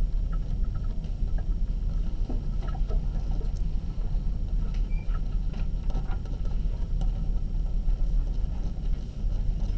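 A steady low rumble, with faint, scattered scratches and ticks of a pen writing on paper.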